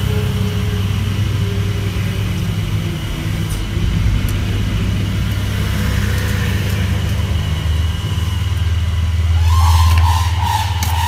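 A steady low engine-like hum. Near the end a pair of red-crowned cranes starts its unison call, the male's 'koo' answered by the female's 'kakka': the pair's courtship duet in the breeding season.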